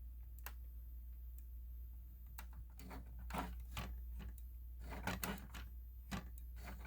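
Handling noise of a plastic speaker strobe being set up to stand on a surface: scattered, irregular light clicks and knocks over a low steady hum.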